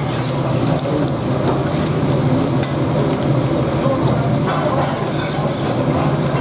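Horumon (offal) pieces sizzling in oil on a flat-top steel griddle, with a metal spatula scraping and turning them in short strokes.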